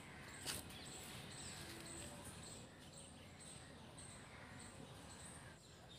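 Faint outdoor ambience with short, high-pitched chirps repeating about every half second, and a light click about half a second in.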